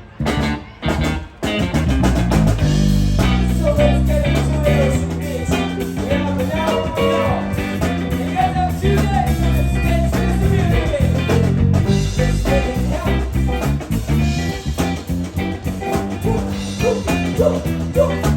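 Live band playing with electric guitar and bass guitar over a steady beat. It stops and starts a few times in the first second and a half, then plays on continuously.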